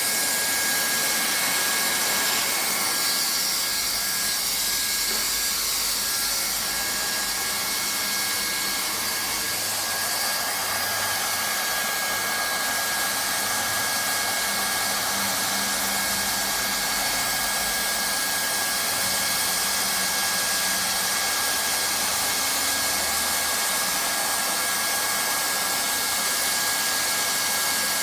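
Handheld hot-air plastic welding gun running steadily: an even blower hiss with a thin, steady high whine.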